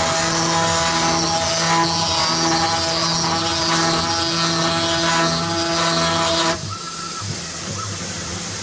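Desktop CNC's low-power spindle running with a steady whine while it drills an aluminium plate, over the hiss of a compressed-air nozzle blowing on the bit. About six and a half seconds in the spindle whine drops out and the air hiss carries on, quieter.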